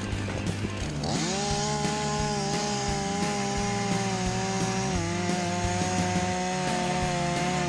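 Chainsaw revving up to full throttle about a second in and held there, its pitch sagging slightly about five seconds in, over background music.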